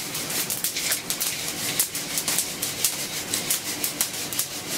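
Brazil coffee beans rattling as they are shaken in a hand-held mesh roaster, with a dense run of sharp crackling pops: the first crack, as the beans swell.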